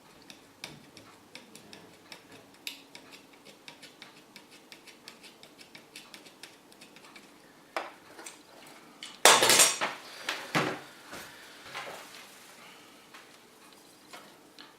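Light ticks, about three a second, of a small metal hand tool scraping copper track on a circuit board. A louder clatter of metal tools follows about nine seconds in.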